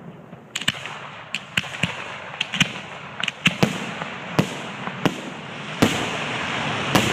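Fireworks display overhead: an irregular string of sharp bangs, about a dozen over several seconds, with a hissing noise building near the end.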